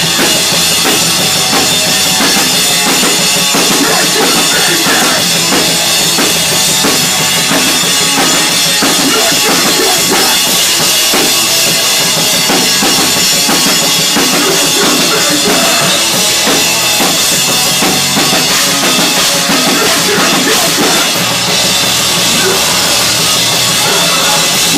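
Hardcore band playing loud live in a small room, with the drum kit, including kick drum and cymbals, driving under the bass and guitars.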